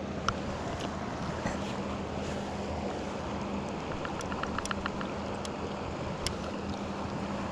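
Steady rush of shallow river current flowing around a wading angler, with a quick run of faint ticks about four seconds in.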